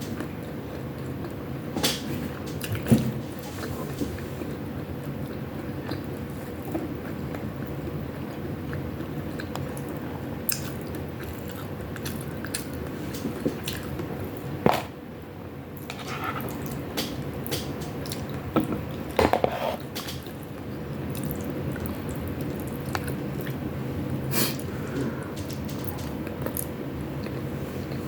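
Close-up chewing and mouth sounds of someone eating chicken wings and pork giniling, with scattered sharp smacks and clicks over a steady low hum.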